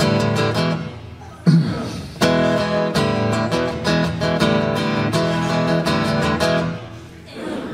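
Acoustic guitar strummed in a repeating rhythm that breaks off twice. A short low grunt fills the first break about a second and a half in; a softer murmur fills the second break near the end. This is the call-and-response grunt of the sing-along.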